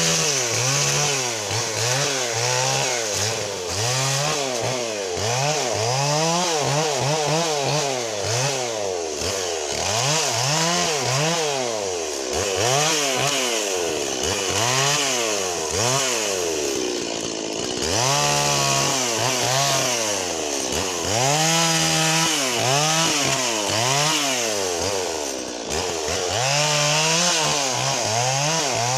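Stihl MS 170 two-stroke chainsaw cutting through a fallen tree trunk, its engine revving up and falling back over and over as the chain bites the wood. The revs sag briefly a little past halfway, then the up-and-down cutting resumes.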